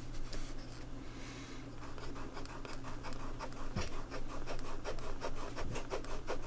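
Eraser rubbing back and forth on sketch-pad paper in quick, even strokes, about five a second, growing firmer after about two seconds in, as it lifts colored-pencil lead.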